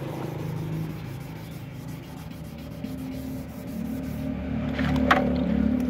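Sandpaper on a hand-held sanding pad rubbing back and forth over a car's painted bumper, a steady scratchy rubbing, working out fine scratches before repainting. A steady low hum runs underneath, and there is a sharp tick about five seconds in.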